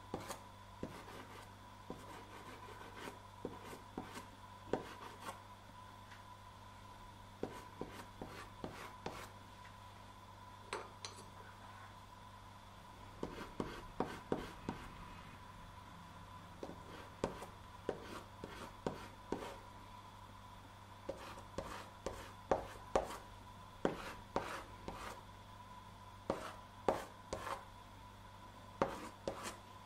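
Jackson's house-brand soft pastel stick scratching and tapping across textured pastel paper taped to a board, in short strokes that come in irregular clusters and grow busier in the second half, over a faint steady hum.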